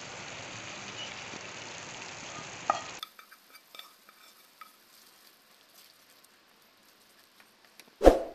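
Thick tomato-onion masala sizzling steadily in a non-stick pan. After about three seconds it drops to quiet scattered clicks and scrapes of a wooden spatula stirring fried peas into the masala. A short, loud thump comes near the end.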